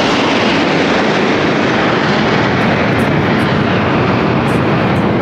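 Formation of fighter jets flying over, a loud, steady jet roar.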